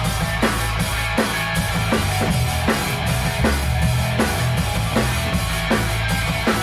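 Rock band playing a song in rehearsal: a drum kit keeps a steady beat of about three hits a second, over a bass line and held chords.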